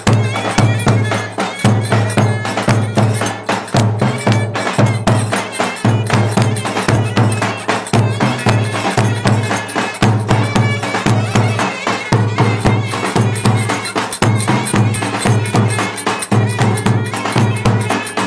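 Turkish folk dance music: clarinets playing a busy melody over a steady, repeating low drum beat.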